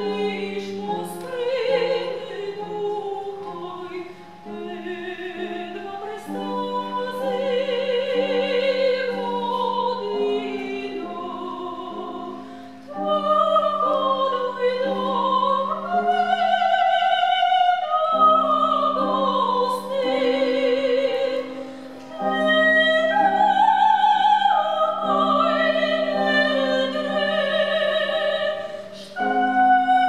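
Two sopranos singing classical art song with wide vibrato, accompanied by cello and piano; the music grows louder about halfway through.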